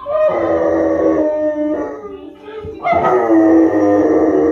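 A dog howling along with a woman's singing from a television: two long howls, each about two seconds, the second starting a little before three seconds in, with the song playing underneath.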